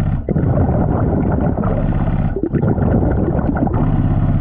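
Underwater rumble and gurgle of a diver's exhaled bubbles from a Blu3 Nemo surface-supplied breathing regulator, heard through the camera housing as a dense, crackling wash.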